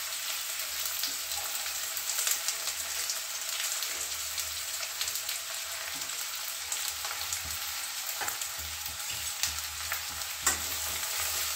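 Sliced onions sizzling in hot mustard oil in a kadhai: a steady frying hiss with scattered light crackles and one sharper click near the end.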